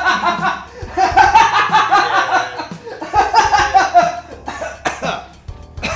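A man's loud, drawn-out belly laugh: rapid repeated ha-ha pulses in two long bouts, with a short breath about three seconds in, dying away near the end.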